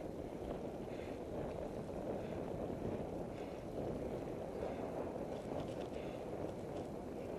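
Steady wind buffeting the microphone and the low rumble of travelling over a rough gravel track, with a faint soft sound repeating about once a second.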